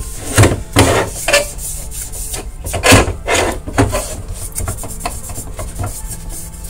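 Cleaning an Xbox console's cooling fan: a series of short rubbing, scrubbing strokes against plastic, about six quick ones in the first four seconds, then lighter scraping.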